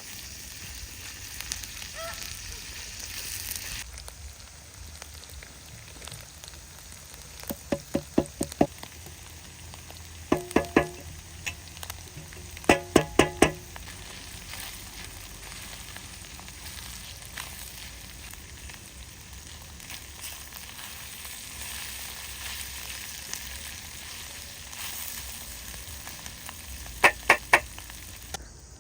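Food frying in a pan with a steady sizzling hiss. Four short runs of quick, sharp, ringing knocks, four to six at a time, stand out above it.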